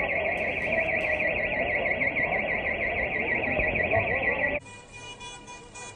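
An electronic alarm warbling rapidly and steadily, with people's voices underneath; it cuts off abruptly after about four and a half seconds, giving way to quieter street noise.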